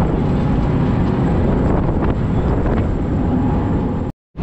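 Wind buffeting the microphone on the open deck of a moving car ferry, over a steady low rumble. The sound cuts out for an instant near the end.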